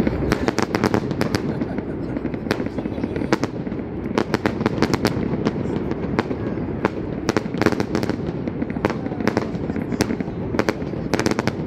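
Fireworks display: a steady run of sharp pops and bangs, often several in quick succession, over a constant low background noise.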